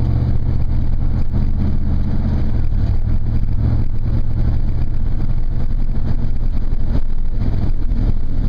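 Truck engine running with road noise while driving: a steady low drone that turns rougher about three seconds in.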